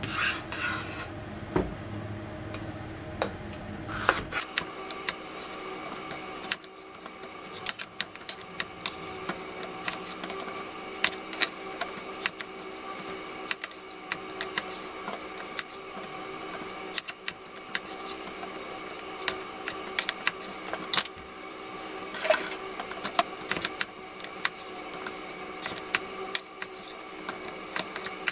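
A broad-bladed kitchen knife slicing eggplant into strips on a bamboo cutting board. The blade knocks sharply on the board, several irregular strokes a second.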